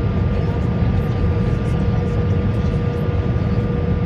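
Steady cabin noise inside an Airbus A321 in flight: a deep, even rumble of engines and airflow, with a steady hum and a fainter higher whine running through it.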